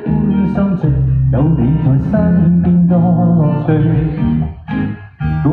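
Live pop band music with guitar to the fore; the sound thins and breaks briefly about five seconds in, then the band comes back in full.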